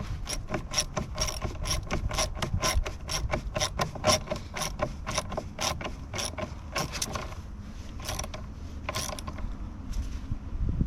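Socket ratchet clicking as the 10 mm nut on the positive battery terminal clamp is tightened: a steady run of about four clicks a second for most of the time, then two single clicks as the nut snugs up near the end.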